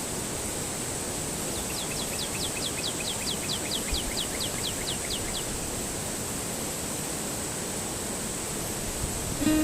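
Steady rush of flowing river water, with a bird singing a trill of quick down-slurred notes, about five a second, for roughly four seconds starting a couple of seconds in.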